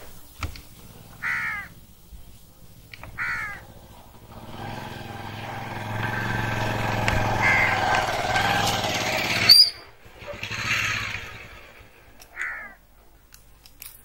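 Crows cawing a few times, with a steady low rumbling hum that swells up in the middle and cuts off abruptly about two-thirds of the way through.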